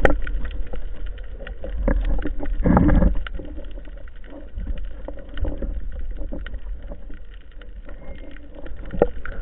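Sea water rushing and sloshing, heard through an action camera's waterproof housing. It is a low rumble with scattered small clicks, and a louder rush about three seconds in.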